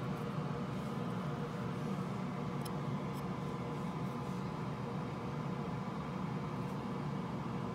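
Steady low mechanical hum with hiss and a faint steady whine, with a few faint ticks.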